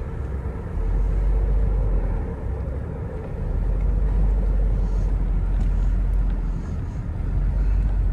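Low, steady rumbling noise that rises and falls slightly, with a faint steady hum through the first half.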